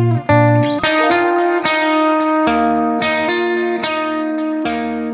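Background music led by guitar, with plucked notes over a steady bass line.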